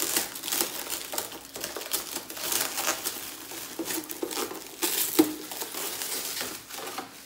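Thin clear plastic wrap crinkling and crackling as it is pulled off by hand and bunched up, with one sharper crack about five seconds in.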